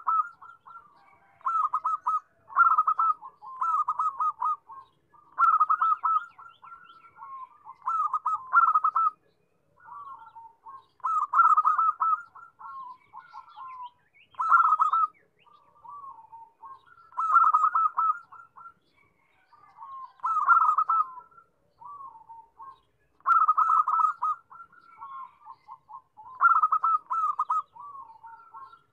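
Zebra dove (perkutut) singing its staccato cooing song: short phrases of rapid rolling coos, repeated every second or two. Some phrases are louder than others.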